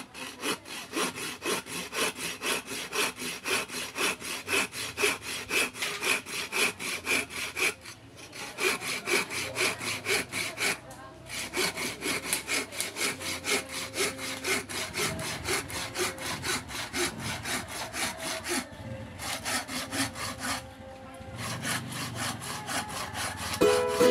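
Homemade hand saw, its blade cut from an old sawmill saw blade, cutting through a thick branch of harder wood with quick, steady back-and-forth strokes, stopping briefly a few times.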